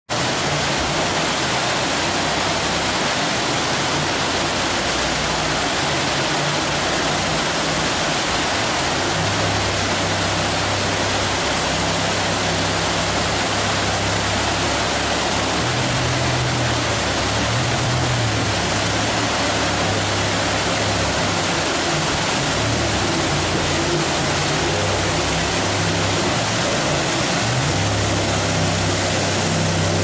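Steady roar of whitewater river rapids. A low hum comes and goes underneath from about nine seconds in.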